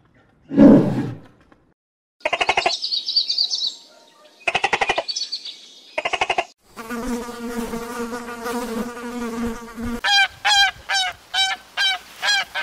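A string of separate animal sounds: a short low growl, then insect buzzing, first two rapid pulsing buzzes and then a steady droning buzz for about three seconds. In the last couple of seconds a domestic goose honks quickly, about seven times.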